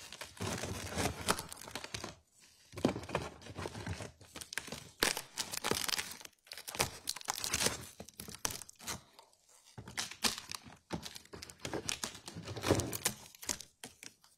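A sealed evidence box being opened and its packaging handled: irregular crinkling, tearing and rustling with many small sharp crackles, in uneven spurts with brief pauses.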